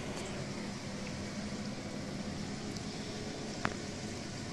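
A kitchen appliance running steadily, a whirring noise with a low hum, and one sharp click about three and a half seconds in.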